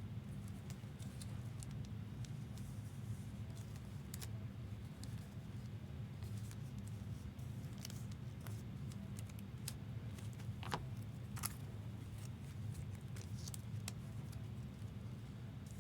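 Trading cards and their plastic wrappers and sleeves being handled, with faint scattered clicks and light scrapes over a steady low hum.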